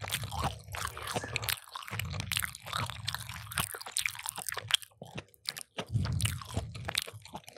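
Two people chewing and crunching food close to microphones: crisp crackles and wet chewing in clusters, with a brief lull about five seconds in.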